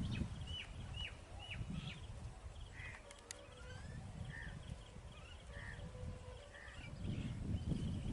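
Birds calling: repeated short chirps and a run of quick falling whistles, over a low rumble that swells near the end.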